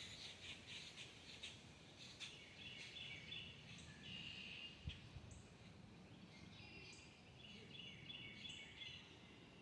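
Birds chirping faintly, with short high chirps and trills repeating throughout, and a single low bump about halfway through.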